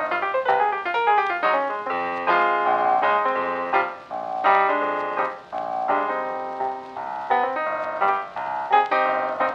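Background piano music: a continuous run of struck notes that ring and fade.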